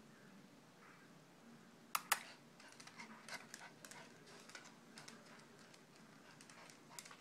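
A Pomeranian's claws clicking and tapping on a hardwood floor as it moves about: two sharp knocks about two seconds in, then a scatter of light, irregular taps.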